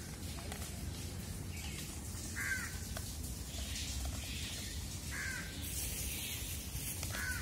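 A bird calling three times, short calls about two and a half seconds apart, over a steady low outdoor rumble.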